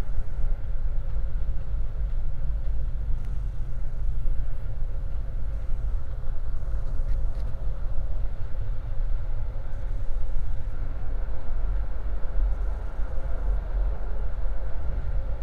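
Regional passenger train running along the line, heard from inside the carriage: a steady low rumble with a faint hum above it.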